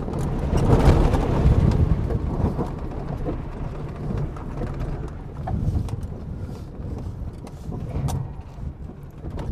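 Old 4x4 SUV driven hard over rough dirt ground: a low engine and tyre rumble with scattered knocks and rattles from the suspension, loudest in the first couple of seconds. The knocking is the sign of worn ball joints on the front control arms and tie rods.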